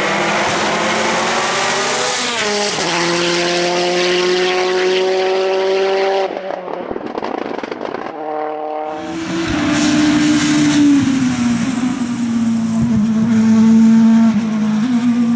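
Touring race car engines at full throttle on a hill-climb course. The pitch climbs through the revs and drops sharply at a gear change about 2.5 s in, then climbs again. The sound falls away around 6 seconds in, and from about 9 s a lower, steady engine note takes over.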